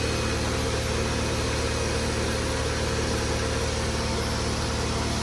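Mercedes-Benz 300E-24's straight-six engine idling smoothly and evenly after a rebuild, heard from inside the cabin with the steady hiss of the air conditioning blower running.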